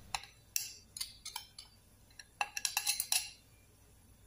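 A metal spoon clinking and scraping against a blender jug and mixing bowl while ground spice paste is scraped out into the flour: a few separate clicks, then a quick run of clinks about two and a half seconds in.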